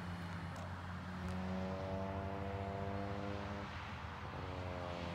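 Twin electric motors and propellers of an FMS F7F Tigercat RC model plane droning in flight. The steady multi-note hum fades briefly about four seconds in, then returns.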